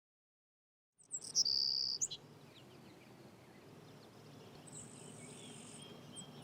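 Birds chirping over faint outdoor ambience, after a second of silence: a few loud, short, high chirps about a second in, then a steady high trill about five seconds in.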